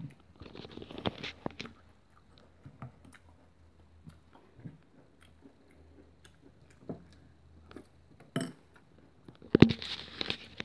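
Someone chewing crunchy breakfast cereal close to the microphone, in spells of crackly crunching: a burst at the start, scattered faint crunches and a sharp click in the middle, and louder crunching again near the end.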